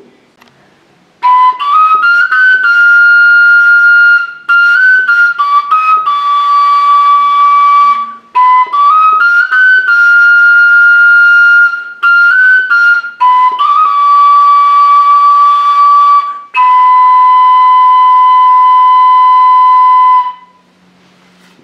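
Long wooden end-blown shepherd's flute playing a slow solo folk melody. Phrases rise through short ornamental runs into held notes, with brief breathing pauses between them, and the melody ends on one long note that stops about a second before the end.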